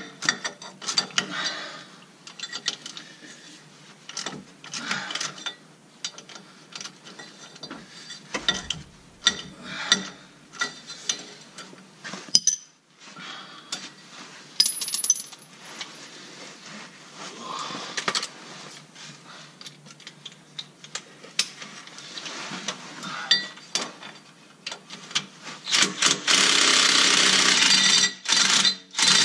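Metal-on-metal clinks and ratchet clicks as a socket and ratchet work the driveshaft U-joint bolts at the Jeep's transfer case output yoke. About 26 seconds in, a cordless impact driver starts running loud and steady on the bolts, with a couple of brief stops near the end.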